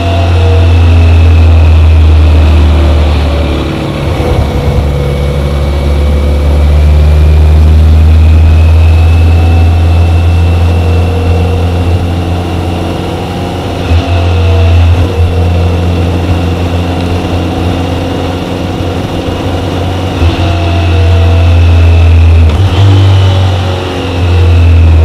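BMW K1100LT motorcycle's inline four-cylinder engine running while the bike is ridden along a road, its pitch and loudness rising and falling with the throttle, easing off a few times.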